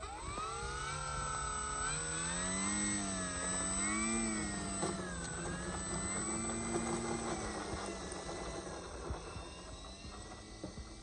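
Electric brushless motor and propeller of a QQ Cap 232EX RC aerobatic plane whining, the pitch climbing, then rising and falling several times as the throttle is worked, and fading over the last few seconds as the plane taxis away.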